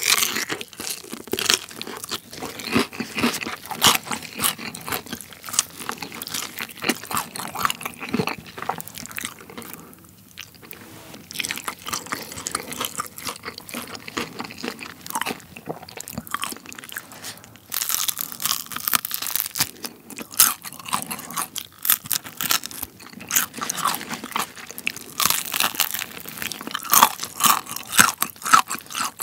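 Close-miked bites and chewing of crispy Kyochon Honey Combo fried chicken, its crisp skin crunching and crackling. The crunching eases off about ten seconds in and comes back louder in the second half.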